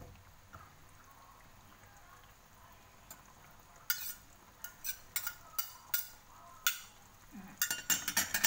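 A metal spatula and spoon clink and scrape against a wok as a chicken feet stew is stirred. The clinks come sharp and irregular from about four seconds in, crowding together near the end, over a faint sizzle of the simmering sauce.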